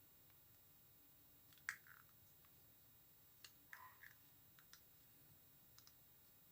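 Near silence broken by a few faint, short clicks and taps as a modelling tool and fingers work small polymer-clay pieces.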